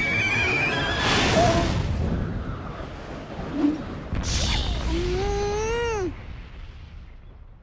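Cartoon sound effects over a low rumble: a wavering whistle that stops about a second in, a whoosh, a thud, then a crash with a tone that rises and then falls sharply, all fading away near the end.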